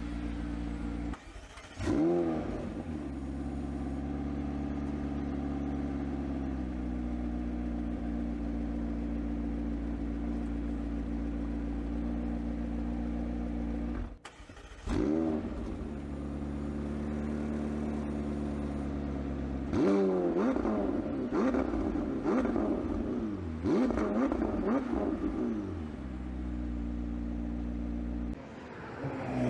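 McLaren 765LT's twin-turbo V8 idling steadily, with throttle blips that rev it up and let it fall back: one about two seconds in and a run of several in the second half.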